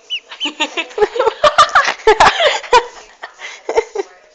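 Duckling peeping in quick arched chirps, with sharp knocks and rubbing close to the microphone as it climbs against a person's neck.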